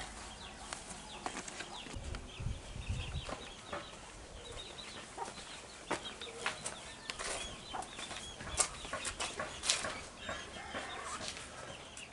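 Chickens clucking faintly, with many short scattered clicks and taps, more of them in the second half.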